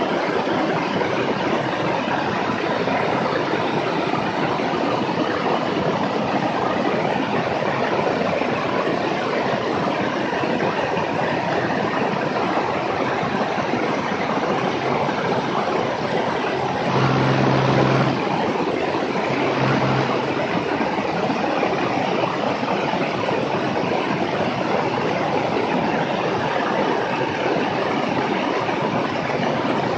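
Beechcraft S35 Bonanza in flight, its Continental six-cylinder engine and propeller running steadily at climb power under a rush of air noise. A brief low steady tone sounds twice, about two-thirds of the way through.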